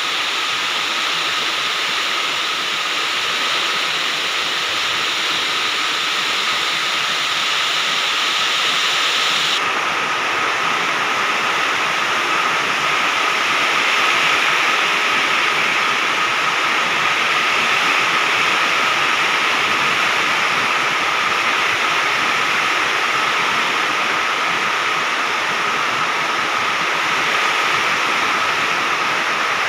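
Heavy rain pouring down in a steady, dense hiss that holds at an even level throughout.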